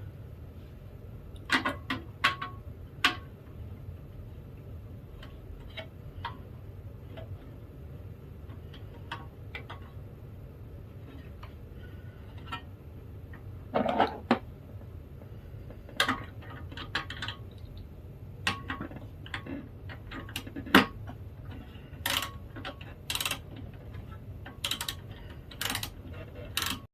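Irregular clicks and knocks of plastic and metal printer parts being handled during disassembly, over a steady low hum.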